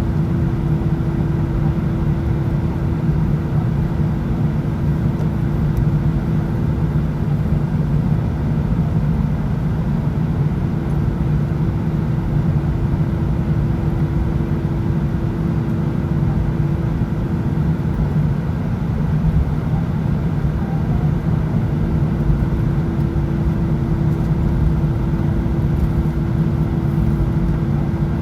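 Airbus A319 passenger cabin noise with the engines running at low ground power: a steady low rumble and a constant hum with an even tone over it, typical of the airliner taxiing out.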